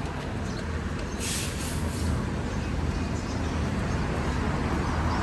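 Street traffic: a heavy vehicle's low, steady rumble, with a short hiss of air about a second in.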